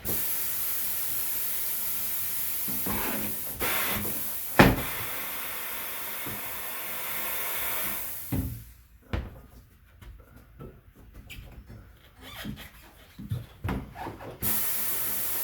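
Hand tools knocking and rubbing against a motorcycle tire and wheel as the tire is worked off the rim, with one sharp knock about four and a half seconds in and a scatter of smaller knocks and scrapes after it. A steady hiss stops about eight seconds in and returns near the end.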